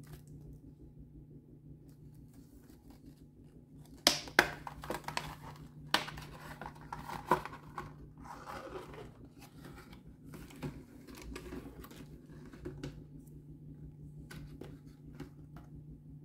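Stiff clear plastic clamshell blister pack being pried open and handled. Starting about four seconds in there are sharp cracks and crinkling of the plastic, the loudest in the first few seconds, thinning to scattered clicks.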